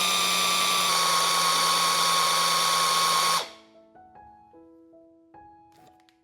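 Electric blender motor running steadily with a high whine as it blends thick nut butter with melted chocolate, cutting off suddenly about three and a half seconds in. Soft piano music follows.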